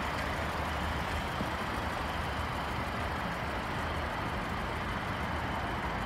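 Steady rumble and hiss of vehicle noise that stays even throughout, with no distinct events.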